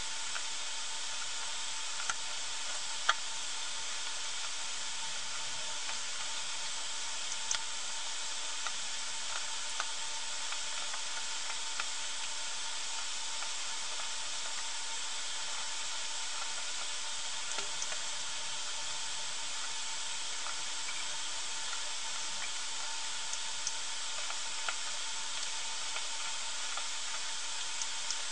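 Steady hiss of recording noise with a faint steady tone running under it, and a few small sharp clicks scattered through, the loudest about three seconds in.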